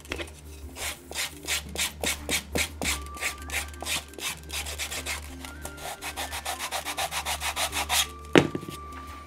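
Sanding sponge rubbed back and forth along the edge of veg-tan leather, about three strokes a second, the strokes quickening toward the end. A single sharp knock near the end.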